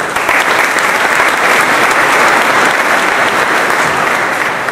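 Audience clapping for a graduate, starting suddenly and fading toward the end.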